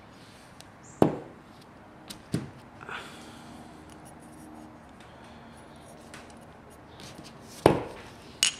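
Handling noise from a stainless revolver and a large rifle cartridge being set down and picked up on a cloth-covered table: a handful of knocks and clicks, the loudest about a second in and again near the end.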